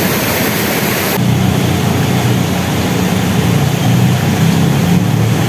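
Steady rush of flowing stream water, loud and even; about a second in it turns deeper and less hissy.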